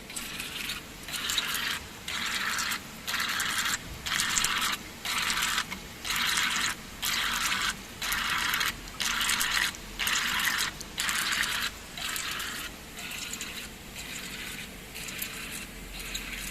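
CNC EDM machine sparking: a crackling hiss that comes in regular bursts about once a second, broken by short gaps, strongest in the middle and weaker toward the end.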